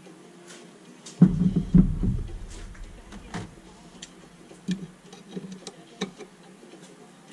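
Heavy steel spindle cartridge set down on a steel workbench, two deep thuds just over a second in, then scattered metal clicks and taps as a hook spanner is fitted to the spindle nut. A low steady hum lies under it.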